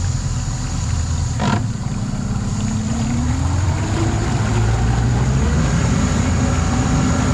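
Yamaha 90 hp four-stroke outboard motor running just after starting, pushing the boat away from the dock. A single knock comes about a second and a half in, and the engine note rises a little between about two and four seconds in as it picks up speed.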